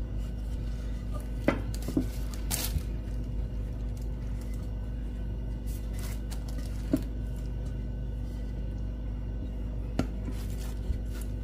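Hands flattening a ball of dough on a work surface: a few light, scattered taps and knocks over a steady low background hum.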